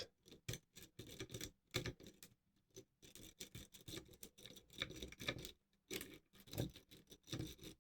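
Lock-pick rake scraping in and out of a Kwikset pin-tumbler lock under light tension, making faint, rapid, irregular clicks and scratches as it rattles over the pins.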